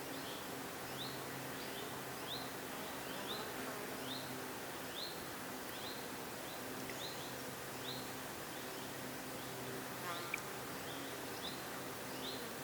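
A flying insect buzzing close by, its low hum coming and going as it moves about. Over it, a bird repeats a short, high, rising call a little more than once a second.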